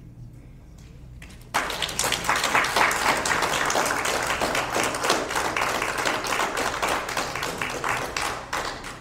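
Audience applauding. It breaks out suddenly about a second and a half in, after a brief hush, stays dense, and tapers off near the end.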